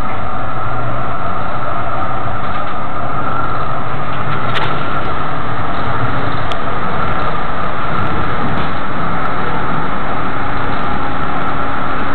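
Tram running, heard from inside the passenger car: a steady rumble and hiss with a constant whine on top, and a couple of faint clicks in the middle.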